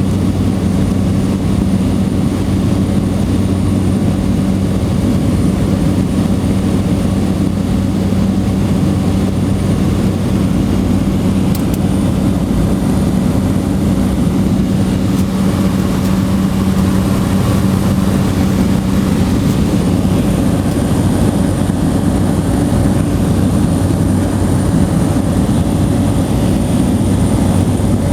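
Steady engine drone of a small propeller plane in flight, heard from inside the cabin, with a constant low hum.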